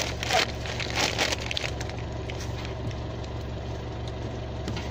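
Short crackling and rustling sounds in the first second or so, over a steady low hum that runs on underneath.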